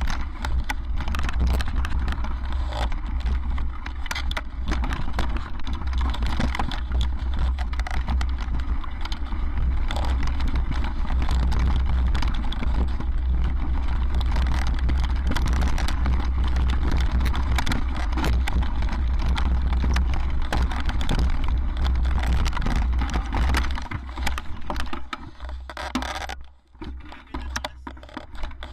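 Mountain bike ridden fast down a rocky trail: tyres crunching over loose stones and the bike rattling over bumps, under a heavy low rumble of wind buffeting the microphone. The noise dips briefly near the end as the bike slows.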